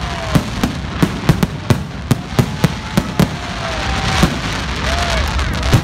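Aerial fireworks bursting in quick succession: sharp bangs and crackles, several a second at first and then fewer, with a loud bang near the end.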